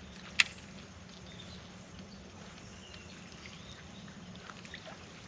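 A steady low hum under quiet outdoor ambience, with one sharp, loud click about half a second in and a few faint high chirps.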